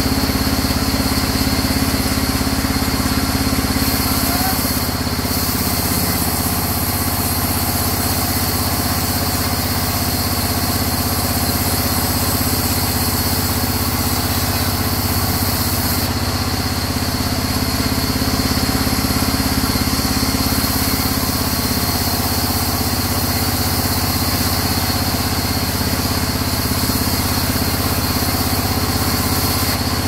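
Sawmill band saw running steadily while its blade cuts lengthwise through a crooked mahogany log, a continuous machine hum with the cutting noise over it.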